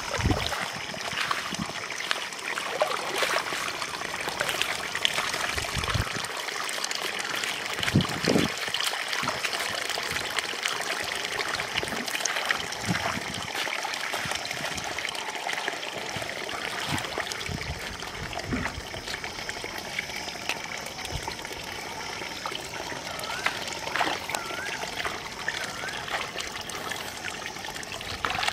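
Shallow water splashing and trickling as a small triangular hand net and hands are worked through a flooded rice field, with many small splashes throughout.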